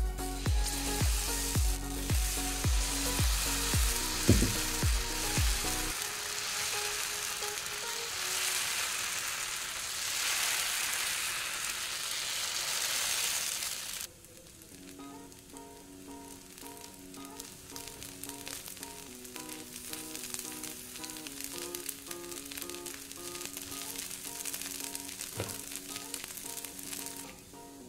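Dosa batter sizzling on a hot tawa. It is loud at first and drops suddenly to a softer, steady sizzle about halfway through.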